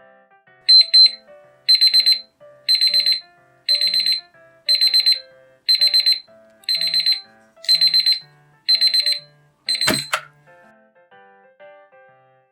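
Alarm clock bell ringing in short rapid bursts, about one burst a second, ten times. It ends with a loud sharp clack about ten seconds in. A soft, simple melody plays quietly underneath.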